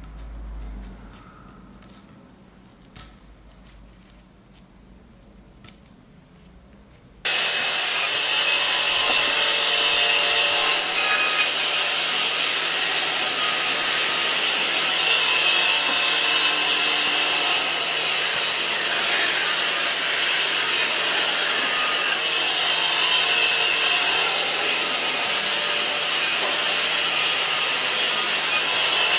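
Band saw ripping a bark-covered log lengthwise into slabs, a loud steady cutting noise that starts suddenly about seven seconds in. Before it there are a few seconds of quiet with faint clicks.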